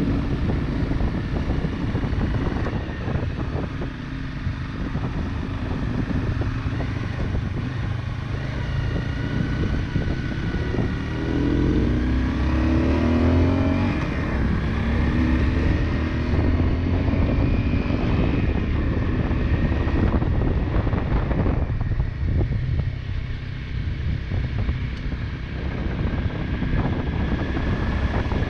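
Motorcycle engine running while being ridden, the revs rising and falling about halfway through.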